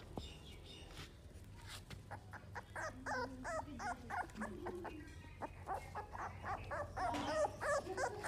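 American Bully puppy whining in short, high, wavering calls, in a run about three seconds in and another near the end, with scattered light clicks between them.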